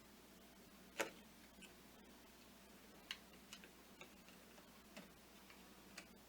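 Faint, sharp ticks about once a second over a low steady hum in an otherwise near-silent room.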